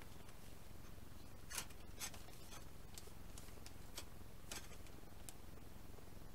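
Faint, scattered crinkles of clear plastic parts bags being handled, over a steady low hum.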